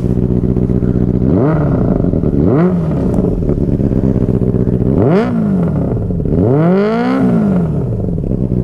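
Benelli TNT 600i's inline-four engine idling and blipped four times, each rev climbing and dropping back to idle, the last one held longest.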